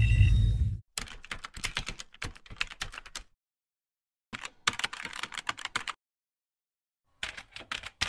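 Computer keyboard typing, an AI-generated sound effect: three short runs of quick key clicks separated by brief silences. A loud low rumble cuts off just under a second in, before the typing starts.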